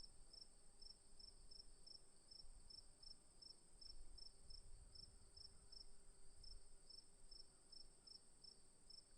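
Crickets chirping, faint: one steady high-pitched trill runs on unbroken while a lower chirp repeats about three times a second.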